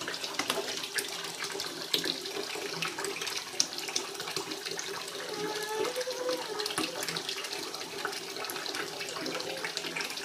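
Water running steadily into a bathtub, with small splashes and knocks as a toddler handles plastic bath toys.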